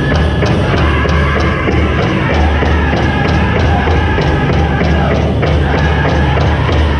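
Powwow drum group singing a chicken dance song: voices in unison over a fast, even beat struck on a large powwow drum.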